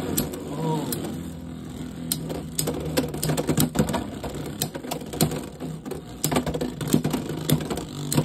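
Two Beyblade X spinning tops, Helm Knight and Dagger Drawn, whirring steadily on the plastic floor of a Beyblade X stadium, with irregular sharp clicks and clacks as they strike each other and the stadium rail.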